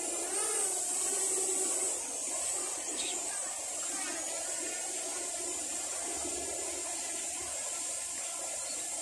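LYZRC L900 quadcopter's brushless motors and propellers whining in flight, the pitch wavering as it manoeuvres in the first two seconds, then holding steadier.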